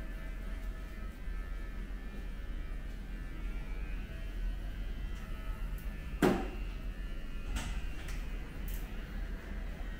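A steady electrical mains hum with faint room noise. A sharp click comes about six seconds in, followed by a few lighter clicks.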